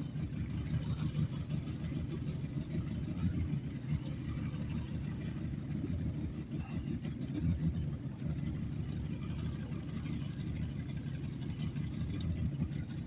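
Boat's outboard motor running at low trolling speed: a steady low rumble.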